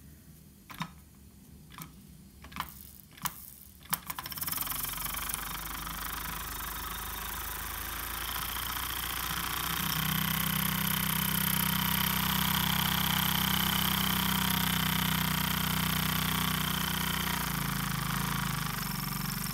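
Small brass Opitec model steam engine with a single cylinder and flywheel: a few sharp clicks, then about four seconds in it starts running with a steady hiss and clatter of steam. About ten seconds in it gets louder, with a steady low running note.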